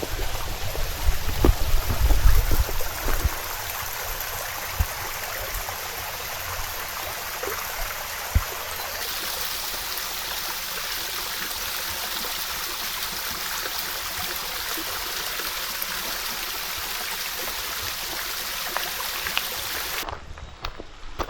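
Steady rushing of a small hillside stream flowing over rocks. There is a low rumble in the first few seconds, and the sound drops off abruptly near the end.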